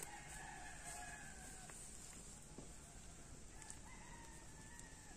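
Faint rooster crowing twice, each a long drawn-out call lasting a second or two, with a couple of soft clicks in between.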